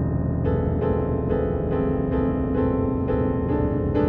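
Slow keyboard music: single piano-like notes struck one after another about twice a second over a held low drone, the run of notes starting about half a second in.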